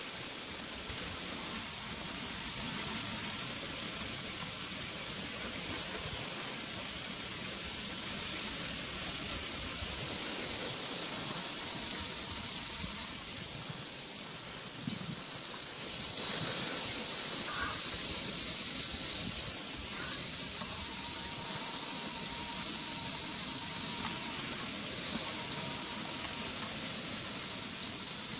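Loud, steady, high-pitched chorus of insects droning without pause, its pitch shifting slightly a few times.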